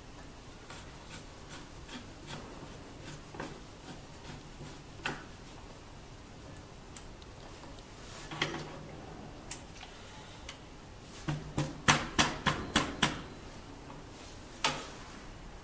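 Scattered sharp clicks and knocks of hands working the metal screen clamps, knobs and aluminium frame of a manual screen printing press, with a quick run of about half a dozen clicks about eleven to thirteen seconds in.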